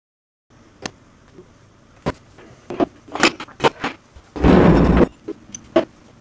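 Knocks and clatter from someone moving about a room and handling things, with one louder, noisy scrape lasting about half a second past the middle.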